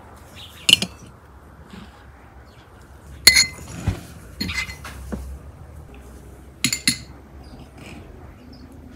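Spoon, tea glasses and dishes clinking on a table: a few sharp clinks, a pair about a second in, the loudest about three seconds in ringing briefly, and another pair near the end.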